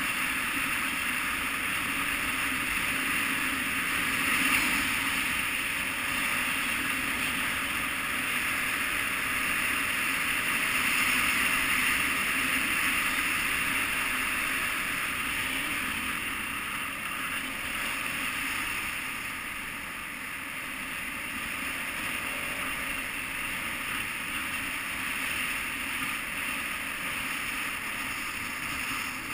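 KTM 990 Adventure's V-twin engine running steadily at cruising speed, mostly buried under a constant wash of wind noise on a helmet-mounted camera.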